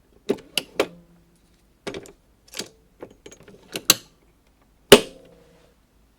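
Pod coffee machine's pod holder and lid mechanism clicking and knocking as a pod is seated and the lid is closed and latched. The loudest snap comes near the end, with a brief ring after it.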